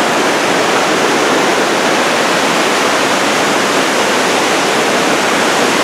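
A creek cascading over boulders in small falls, making a steady, loud rush of water.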